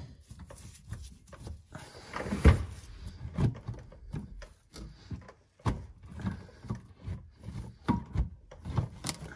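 Channel-lock pliers clicking and knocking against a spin-on oil filter and nearby metal as they are clamped on and the filter is twisted counterclockwise to break its seal, with the loudest knock about two and a half seconds in.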